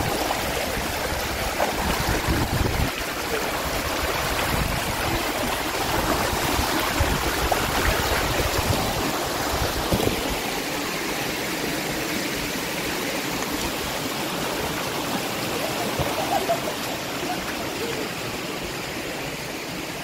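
Canyon stream flowing: a steady rush of running water, with an uneven low rumble during the first half.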